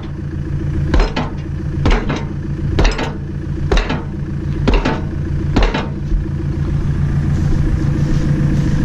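Six sharp metal-on-metal strikes, about one a second, stopping about six seconds in, over an engine idling steadily.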